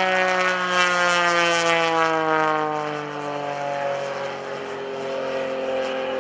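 Pitts S-1S aerobatic biplane's Lycoming IO-360 engine and propeller at power. The engine's pitch falls steadily through the whole stretch, loudest in the first couple of seconds and easing a little after.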